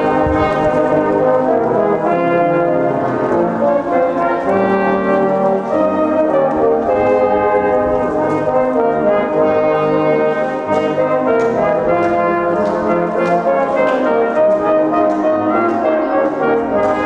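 Brass band playing a piece in full chords, with held notes that change every second or so.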